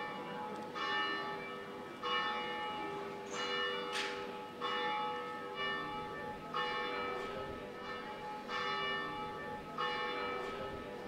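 Church bells ringing, a stroke about every second, each one ringing on into the next.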